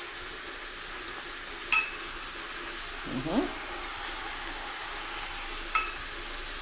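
A metal spoon clinks twice against a glass bowl of ground spice, each clink ringing briefly. Underneath is the steady sizzle of onions and chicken frying in a stainless steel pot. A brief rising sound comes about three seconds in.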